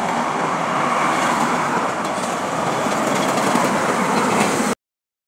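Diesel engine of a semi-truck tractor running loud as it drives past, a dense steady noise that cuts off suddenly near the end.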